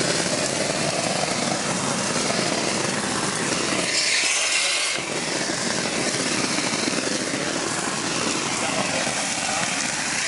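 Shotcrete nozzle blasting sprayed concrete with compressed air: a loud, steady rushing noise, with a brighter hiss for about a second around four seconds in.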